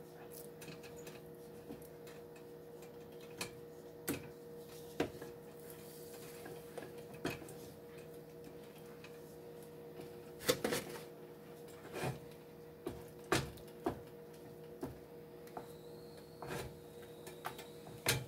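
Wooden spoon stirring thick milk-and-roux white sauce in a nonstick skillet, with about a dozen scattered knocks and scrapes of the spoon against the pan over a faint steady hum.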